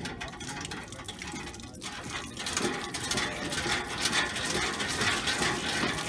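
Lever-action hand pump being worked: the handle and pump mechanism clank while water splashes from the spout onto the concrete, the splashing growing louder about halfway through.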